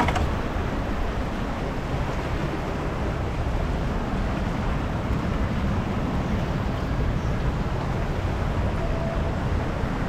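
Water rushing and churning around a river rapids raft as it drifts through the concrete channel: a steady, even wash with a low rumble.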